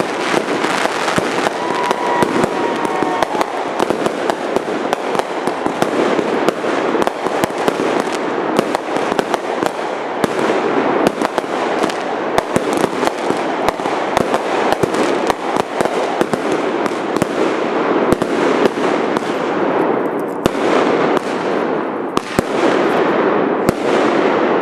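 Aerial fireworks bursting in a dense, continuous barrage of bangs and crackling, with hardly a gap between reports.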